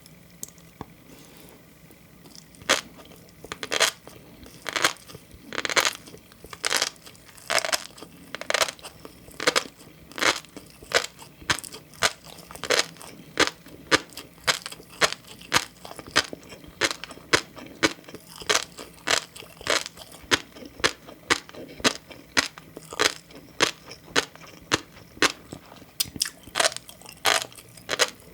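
Close-miked chewing of green tobiko (flying fish roe): a long run of sharp crunchy pops and clicks. They begin a few seconds in, irregular at first, then settle to about two a second.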